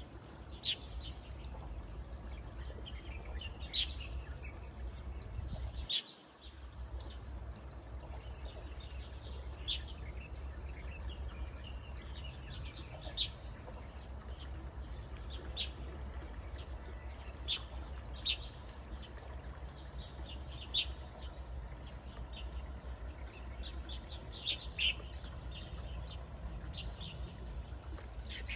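Outdoor nature ambience: a steady, high, pulsing insect trill with short bird chirps every second or few, over a low steady rumble that drops out briefly about six seconds in.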